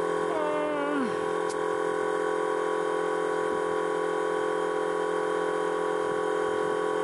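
Electric air-ride suspension compressor running steadily with a constant whine, charging the air tank and bags toward the most pressure it can reach, about 50 psi.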